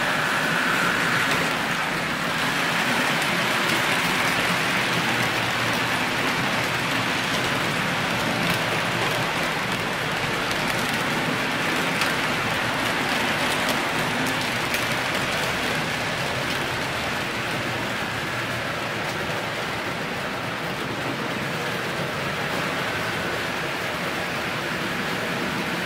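HO-scale model freight train rolling on its track: a steady hiss of metal wheels on the rails with faint scattered clicks, a little louder while the cars pass close and easing slightly as the train moves off round the loop.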